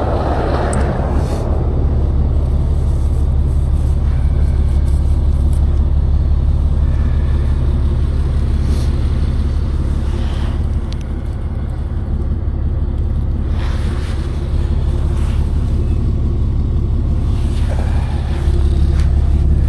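A vehicle engine idling: a steady low rumble that gets a little louder near the end.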